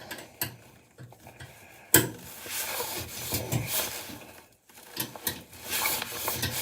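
A spanner working a stiff bolt on a washing machine: irregular metal clicks and scraping, with a sharp knock about two seconds in.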